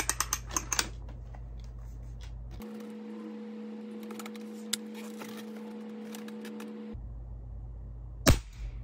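Diana 48 .177 side-lever spring-piston air rifle: a quick run of clicks as the side lever is cocked, then a single sharp shot near the end as the spring-piston fires a pellet at about 950 feet per second.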